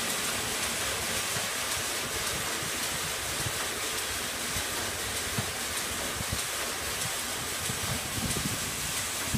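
Large log band saw cutting lengthwise through a log: a steady, even rush of sawing and machine noise, with a few low knocks along the way.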